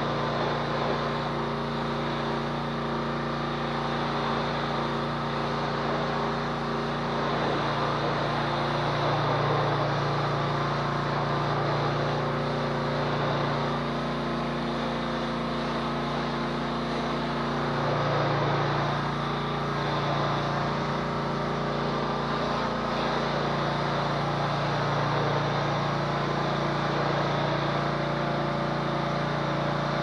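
Troy-Bilt 2800 PSI gas pressure washer running steadily, its 190cc OHV engine humming under load with the hiss of the high-pressure water jet spraying against the door.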